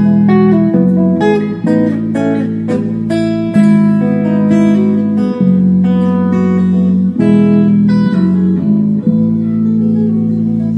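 Instrumental guitar music with no singing: quick plucked notes over held low notes that change every second or two.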